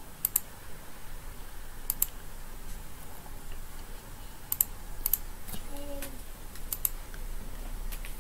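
Computer mouse and keyboard clicks, several of them quick double clicks, coming every second or two.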